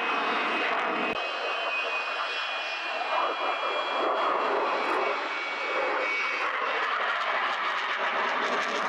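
Dassault Rafale's twin Snecma M88 turbofans with afterburners lit during a display turn: a steady jet noise with a thin high whine that drops slightly in pitch over the first six seconds.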